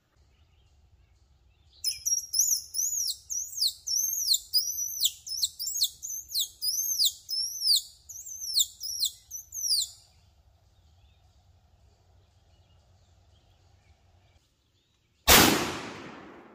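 A bird chirping a long run of high, clear notes, about two to three a second, for some eight seconds. Near the end comes a single loud .410 shotgun shot that dies away over about a second.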